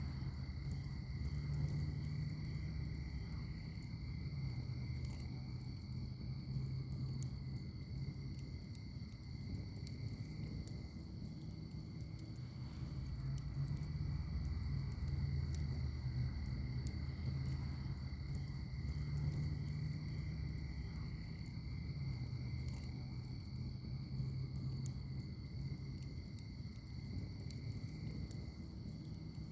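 Wood fire in a firepit crackling, with many small sharp pops scattered over a low steady rumble. Two steady high-pitched tones run underneath throughout.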